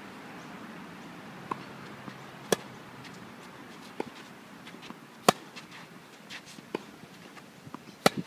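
Tennis rally: about six sharp pops of racquets striking the ball and the ball bouncing on the court, roughly one every second or so. The loudest pops come near the middle and near the end, when the near player's racquet hits the ball.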